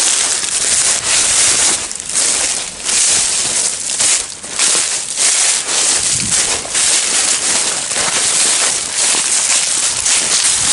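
Footsteps crunching and rustling through deep dry fallen leaves at a brisk walking pace, roughly one and a half steps a second.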